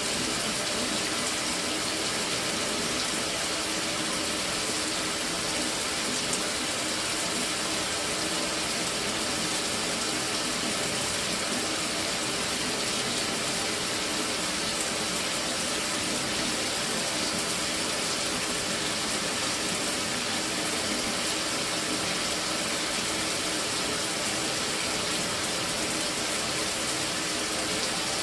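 Mira electric shower running steadily, its water spraying without cutting out after a new solenoid valve.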